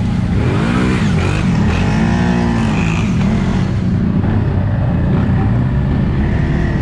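Off-road vehicle engine running under throttle: the revs rise and fall about three times in the first three seconds, then hold at a steady drone.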